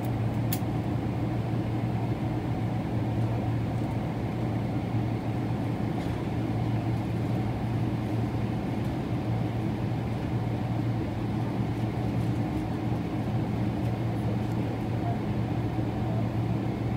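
Steady cabin drone inside a Boeing 777-300ER on the ground with its GE90 engines running at low power: an unchanging low hum over an even rushing hiss.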